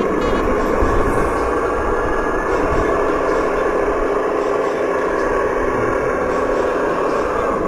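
Radio-controlled model construction machines running, their small electric motors and gearing giving a steady whine over a low, uneven rumble.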